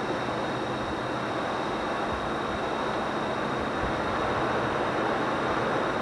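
EMD GP38 diesel locomotives, non-turbocharged 16-cylinder 645 engines, working hard up a grade at the head of a long hopper train: a steady engine roar that grows a little louder about four seconds in. The SD50s trailing them are drowned out.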